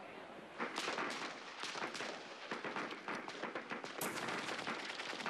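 Gunfire: rapid, overlapping rifle and machine-gun shots that break out about half a second in and keep going.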